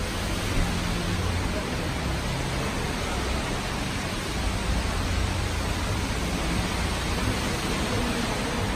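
Steady rushing background noise, even across high and low pitches, with a low hum underneath and no distinct events.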